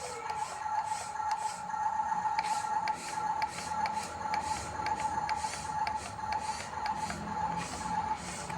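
RC bulldozer's electric drive motors and gearbox whining steadily while it runs, with a low rumble and light regular clicking of the tracks about twice a second.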